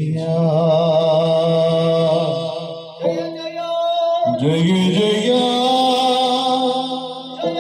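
A male Yakshagana Bhagavata sings a padya in long, held, wavering notes over a steady drone. He sings two phrases, with a short break about three seconds in.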